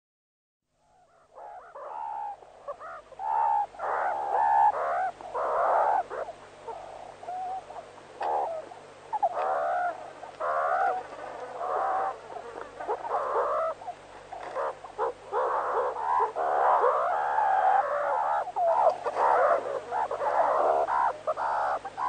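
Meerkats calling: a continuous stream of short chirps and squeaky calls that rise and fall in pitch, many overlapping, starting about a second in.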